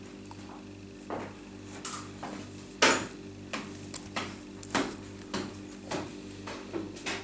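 Small metal clicks and taps, irregular and about a dozen of them, as a hinged metal cuff bracelet is turned and handled in the fingers. The two loudest come about three and four seconds in, over a steady low hum.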